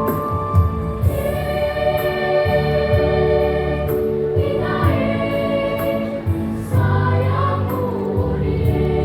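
School choir singing in harmony over instrumental accompaniment with a steady beat.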